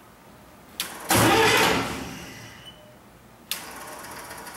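The MEP-004A diesel generator's start switch clicks into the start position, followed by a loud burst of starting-circuit noise lasting about a second that fades away. A second sharp click near the end is followed by fast, light ticking. The switch passes only about 3 volts, and the owner takes it to be bad.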